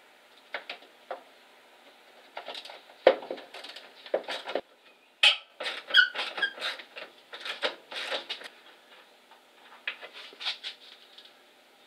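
Hand tools working on the bolts and nuts of a 1970 Chevy C-10's heater box on the firewall: irregular clicks, knocks and scrapes of metal, with a few short squeaks about halfway through.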